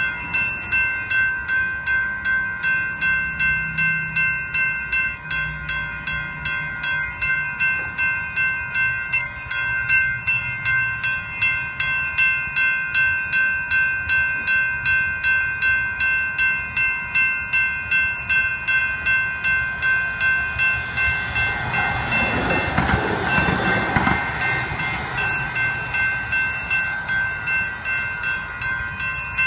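Electronic railroad-crossing bells ringing steadily, about two strokes a second, with a bright metallic electronic tone: a GS Type 2 e-bell on the near gate and a WCH Type 1.5 Gen 2 e-bell across the tracks. About two-thirds of the way through, a VTA light rail train passes the crossing in a swelling rush of wheel and motor noise that fades a few seconds later.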